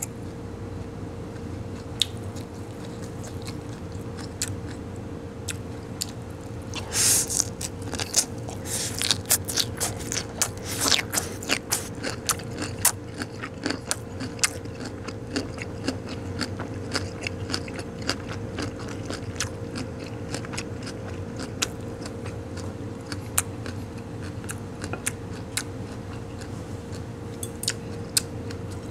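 A person chewing a mouthful of seasoned goji-berry shoots close to the microphone: a run of wet, crunchy bites and clicks, busiest from about seven to eleven seconds in, over a steady hum.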